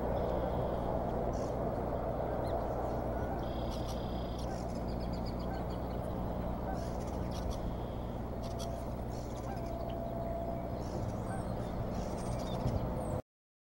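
Outdoor nest-cam audio: a steady background hiss with a low electrical hum, and faint high bird chirps now and then. The sound cuts off suddenly near the end.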